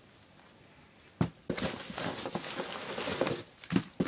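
Hands unpacking nylon military pouches: a sharp knock about a second in, then rustling and a few more knocks near the end as the items are handled and set down on a cloth-covered table.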